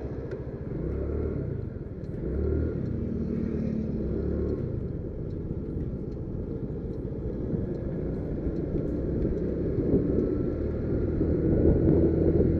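Motor scooter engine running under way, with a steady low rumble of road and wind noise; the engine note rises and falls a few times in the first few seconds.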